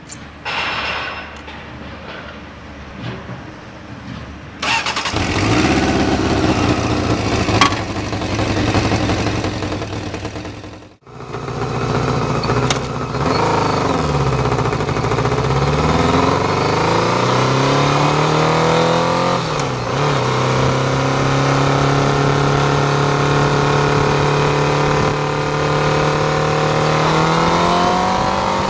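Honda CBR600F2's inline-four engine starting about five seconds in and running. After a break, the bike is ridden: the engine note rises and falls through gear changes, settles into a steady cruise, and climbs again near the end.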